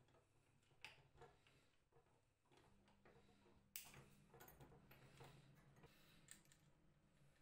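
Faint clicks and ticks of a screwdriver and small metal parts while a screw is driven through a wooden seat into a toy tricycle's wire frame. The clicks are scattered and irregular, with the sharpest one near the middle.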